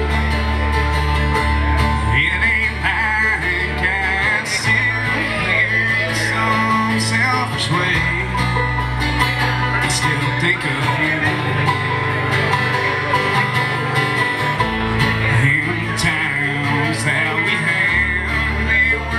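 Live acoustic band playing a country/bluegrass-style song: strummed acoustic guitars and a picked banjo over low notes that change every few seconds, with a man singing.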